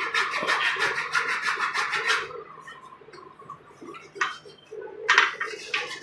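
Small hacksaw cutting through a grey PVC plastic pipe: quick rasping strokes for about two seconds, a pause, then a few more strokes near the end.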